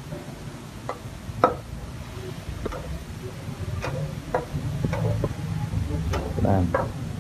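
Metal ladle clinking and scraping against a steel wok while food is stirred, in irregular taps over a low steady rumble.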